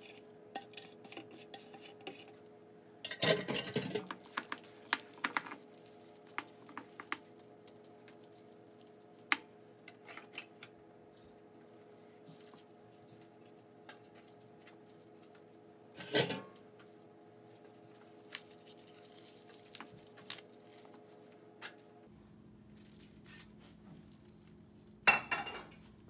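Scattered clinks and knocks of a bowl and a metal pot as seasoned meat pieces are moved by hand into the pot. There are louder clatters about three seconds in, around sixteen seconds, and near the end, over a faint steady hum that stops a few seconds before the end.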